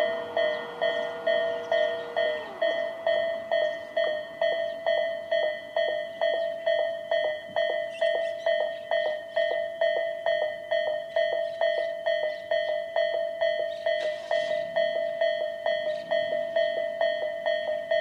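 Japanese level-crossing electronic warning bell of the Tobu type ("Tobu sound A") ringing a steady, rapid ding-ding of about two strikes a second, signalling that a train is approaching. Under it, the electric barrier machines whine as the arms lower, a tone that winds down and stops about two seconds in once the arms are down.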